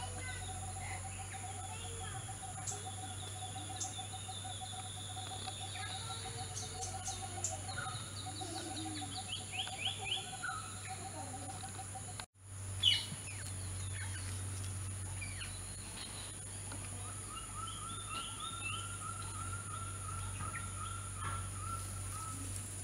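Outdoor ambience of birds calling: a rapid low trill that repeats through the first half, scattered chirps, and a higher trill later on, over a steady high-pitched whine. About halfway through the sound drops out briefly, followed by a sharp click.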